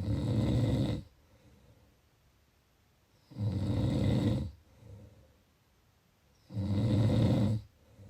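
A person snoring: three loud snores, each about a second long and roughly three seconds apart, with a quieter breath after each.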